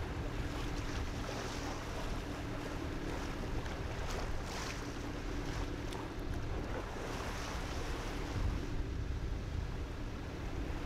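Small tugboat under way: its engine drones steadily under the rush and splash of water along the hull and wake. Wind buffets the microphone now and then.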